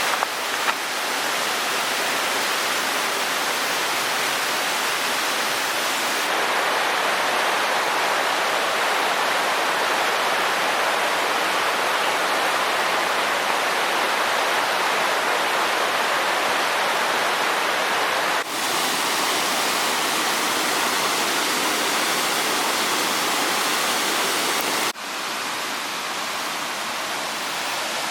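Steady rushing-water hiss from a waterfall or fast stream, with no voices. Its level changes abruptly about 6, 18 and 25 seconds in, where the footage is cut.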